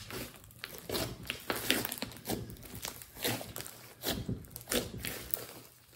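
Hands squeezing and pressing a thick clay-mixed slime, which gives off irregular crackling, squishing clicks several times a second.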